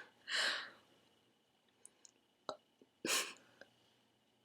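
Two faint breaths, about half a second in and just after three seconds, with a small click between them, from a person straining to bring up a burp after gulping soda; no burp comes.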